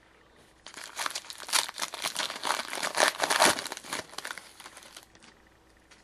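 Hockey card pack wrapper crinkling and tearing as a pack is ripped open by hand, a dense crackle for about four seconds that tails off near the end.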